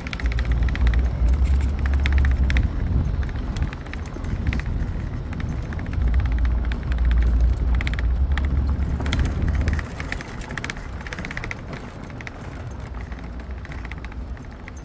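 Truck driving slowly, its low rumble swelling twice and then easing off about ten seconds in.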